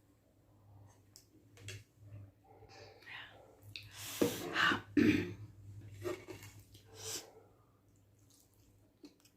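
A person eating at a mukbang table: scattered soft mouth and utensil clicks, with a loud breathy burst about four to five seconds in and a smaller one near seven seconds.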